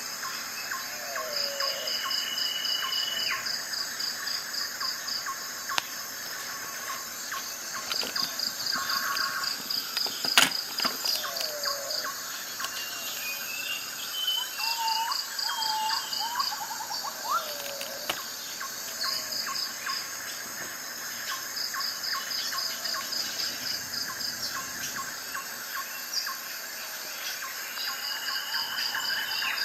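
Nature ambience of insects chirping in short repeated trills, with scattered bird chirps and calls. There is one sharp click about ten seconds in.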